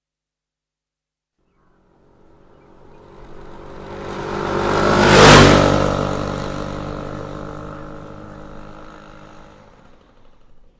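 A motorcycle passing by. Its engine comes up about two seconds in, swells to one loud peak a little past the middle, then fades away over several seconds.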